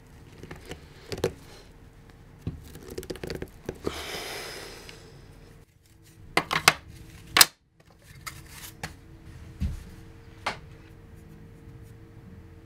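Pliers and 3D-printed plastic parts clicking and knocking on a workbench as flexible strip brushes are forced into the tight grooves of a dust shoe, with a brief rustle of bristles about four seconds in and a few sharp clicks near the middle, over a faint steady hum.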